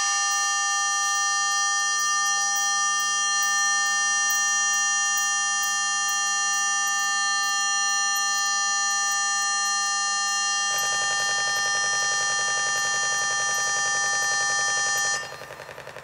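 Electronic drone music from a laptop and keyboard setup: a steady chord of several high, whistle-like tones held over a low hum. About eleven seconds in a rough buzzing layer joins, and the sound cuts off suddenly near the end.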